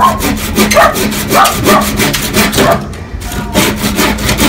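Hand saw cutting through a thin wooden board, with quick back-and-forth strokes about three a second and a brief pause about three seconds in.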